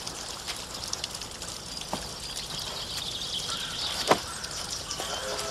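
Outdoor background ambience: a steady hiss with faint bird chirps and two sharp knocks, the second, louder one near the end.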